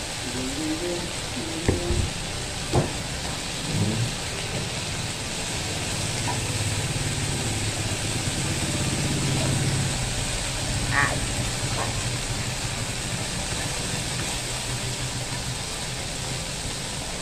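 Food sizzling on a tabletop grill pan, a steady hiss with a couple of sharp clicks about two and three seconds in.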